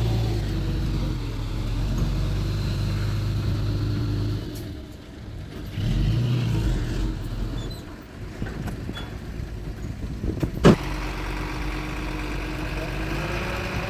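Diesel engines of heavy earthmoving machinery running, dropping away briefly about five seconds in and then coming back, with one sharp loud clank about ten and a half seconds in.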